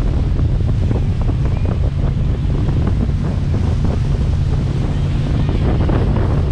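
Strong wind buffeting the microphone at speed on a towed tube, with water rushing and splashing.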